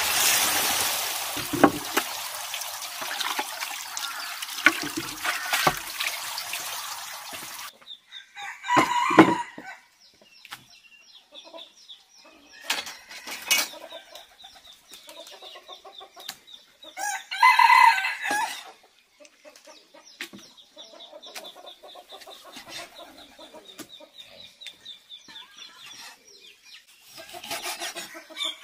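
Tap water pouring into a wooden bucket, cutting off about eight seconds in. Then chickens clucking, and a rooster crowing loudly a little past halfway, with a few knocks of a cleaver on a wooden chopping board.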